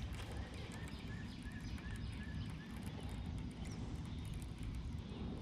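Outdoor pond-side ambience with a steady low rumble of wind on the microphone; about a second in, a bird calls a run of about six short, evenly spaced notes, with a few faint higher chirps later.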